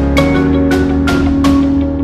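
Background music: a melody of short ringing notes, about two a second, over a held low note.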